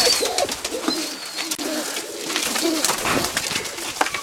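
Domestic pigeons cooing, with scattered light clicks and taps among them.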